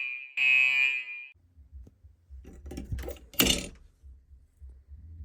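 Fire alarm sounding a buzzy, high-pitched pulse, the last of a group of three, which cuts off about a second in. Then a low hum with a brief burst of rattling, clinking noise around the middle.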